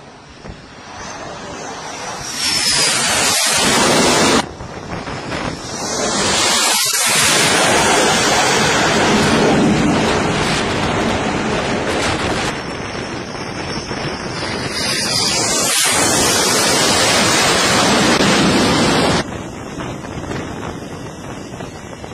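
Carrier-based fighter jet engines passing close during approaches and landings: a loud rushing engine noise with a falling whine that swells as each jet goes by. It stops abruptly twice, about four seconds in and again near the end.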